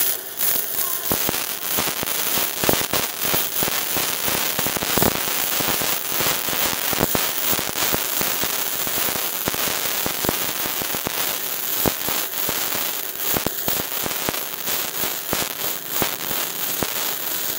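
Gasless flux-cored MIG welding arc from a Weweld Multimig 230 mini MIG welder on steel plate, turned up to a hotter setting. It starts abruptly and holds a steady, dense crackle full of sharp pops and spatter.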